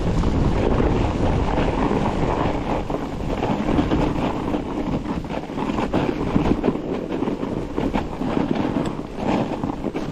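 Wind buffeting the microphone of a bike-mounted camera as a fat bike rides fast over snow, with the rush of the tyres on the trail and frequent small knocks and rattles from bumps.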